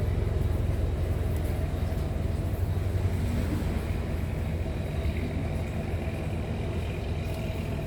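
Steady low rumble of background noise with no distinct events, like road traffic.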